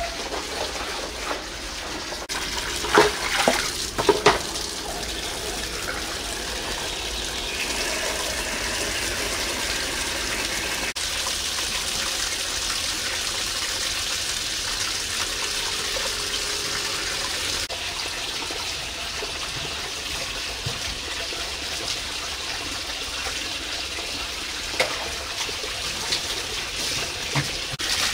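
Water running and splashing as it is poured from a plastic dipper over muddy legs and feet into a basin, with a steady wash of flowing water. A few sharp knocks come a few seconds in and again near the end.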